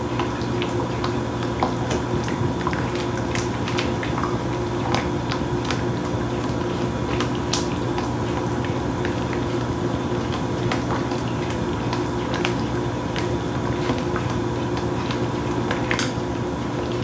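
A creamy sauce of cream of mushroom soup and sour cream being stirred in a pan on low heat: wet squishing with scattered light clicks, over a steady hum.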